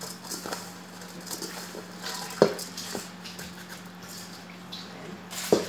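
Gloved hands tossing shredded kataifi dough in a stainless steel mixing bowl: light rustling and scattered clicks, with two sharp knocks of the metal bowl, about two and a half seconds in and near the end. A steady low hum runs underneath.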